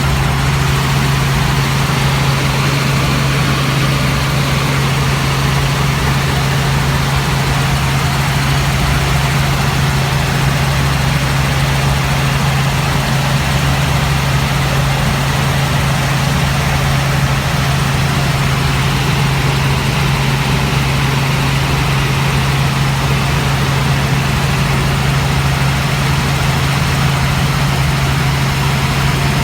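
Helicopter heard from inside the cabin, running steadily: a loud, unchanging drone with a strong low hum under a wide rush of noise.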